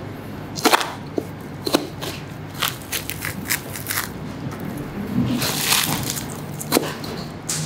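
Boning knife cutting and scraping along the ribs of a raw beef forequarter, slicing meat and membrane away from the bone: a run of short, sharp crackling clicks, with a longer cut about five seconds in.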